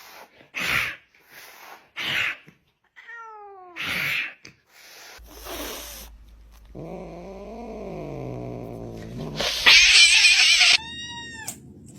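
Agitated cats hissing and yowling. Several short hisses, a brief falling meow, then a long drawn-out yowl that rises and falls in pitch, ending in a loud hiss and a short high cry.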